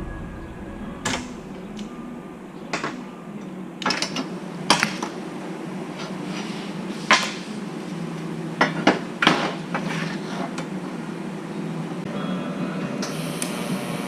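Welding machine and torch running during a weld: a steady hum, broken by a number of sharp, irregular clicks and pops, with a hiss building near the end.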